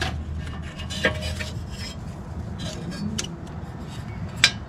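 Hand tools and small metal parts clinking and scraping, with a few sharp clinks and the loudest near the end, over a low steady hum.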